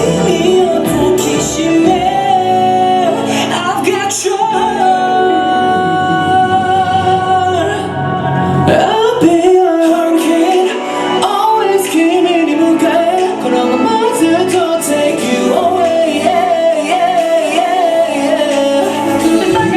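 Pop song with a singing voice over the backing track, which briefly thins out about eight seconds in.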